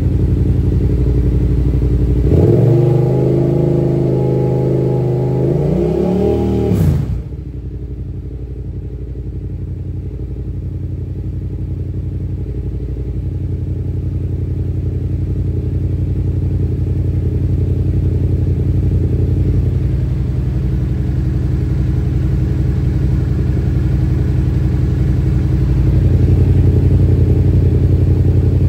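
Yamaha FZ-07's parallel-twin engine running. It is revved up about two seconds in, held there a few seconds, then drops back to a steady idle about seven seconds in.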